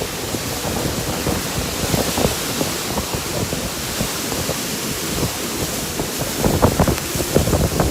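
Strong wind gusting and buffeting the microphone, a loud rushing hiss with irregular low rumbles, heavier gusts near the end.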